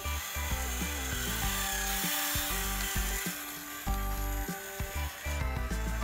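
Background music over the scraping rustle of a toy excavator's plastic bucket digging through a pile of wood chips.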